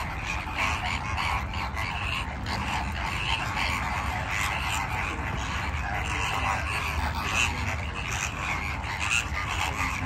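A large flock of greater flamingos calling all at once: a steady, dense chatter of many overlapping croaking, goose-like calls.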